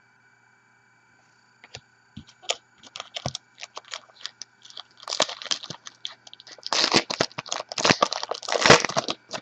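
Foil trading-card pack wrapper crinkling and tearing as it is handled and opened: a few scattered crackles at first, then a thick run of crinkling and ripping over the last few seconds.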